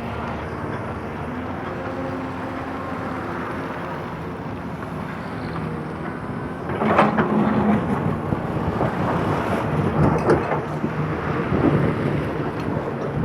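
Excavator's diesel engine running with a steady rumble, getting louder about seven seconds in as it works harder, with a few short knocks after that.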